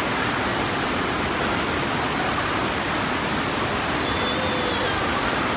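Steady, even rushing of water pumped in a thin sheet up the padded slope of an indoor surf-simulator wave ride, with faint children's voices about four seconds in.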